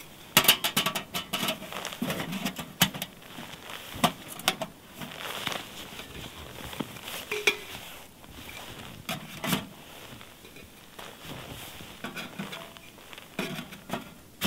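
Metal stovepipe sections being handled and fitted onto a small wood stove: a quick run of sharp metallic clicks and clatter about half a second in, then scattered clinks, knocks and scrapes.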